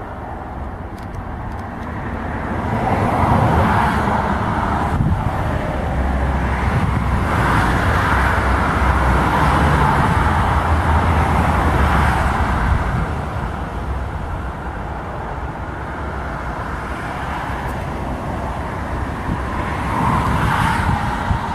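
Twin-engine jet airliner's engines at high power during its takeoff roll on a wet runway, a loud rumble with tyre and spray noise. It builds about three seconds in, stays loud until about thirteen seconds, eases off, and swells again near the end.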